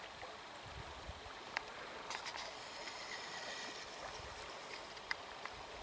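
Shallow, fast river current running over a stony riffle: a steady even rush of water, with a few faint clicks.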